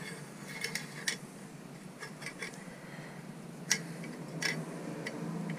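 Light metal-on-metal clicks and taps, scattered and irregular, as a 45mm metal exhaust baffle is pushed into the end of a slash-cut motorcycle exhaust pipe and turned to line up its bolt hole.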